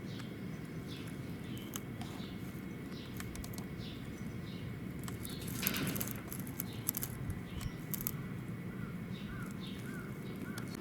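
Small birds chirping, short high calls repeated every second or so over a steady background hum, with a brief rustle and clicks about halfway through and a quicker series of lower calls near the end.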